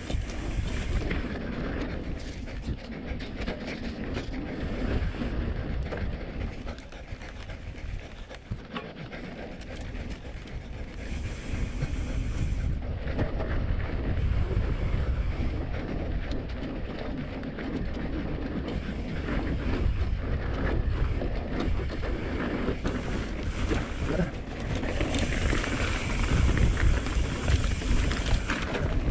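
Mountain bike being ridden downhill: wind buffeting the helmet camera's microphone over the rumble of tyres on dirt, with frequent clicks and knocks from the bike rattling over rough ground.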